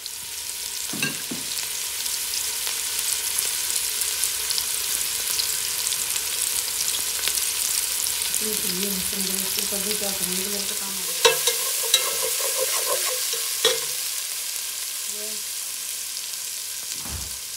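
Chopped onion, garlic and ginger sizzling steadily in hot oil in a stainless steel pot, stirred with a metal slotted spoon that clinks against the pot a few times, mostly in the second half.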